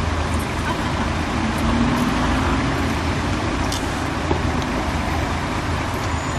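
Steady road traffic on a city street, with one engine note rising briefly about two seconds in.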